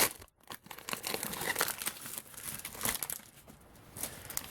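Trading card pack wrapper being torn open and crinkled by hand, in irregular crackling rustles.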